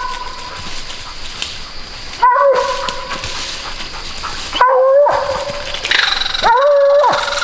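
Walker coonhound barking treed, a bawl-like bark repeated about every two seconds: the sign of a hound holding a raccoon up a tree. Each bark rises sharply, holds, then drops off. The last one is the longest.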